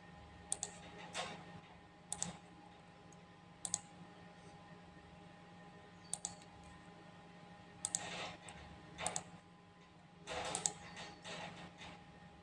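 Irregular clicks of a computer mouse, about ten of them spaced unevenly, over a faint steady hum.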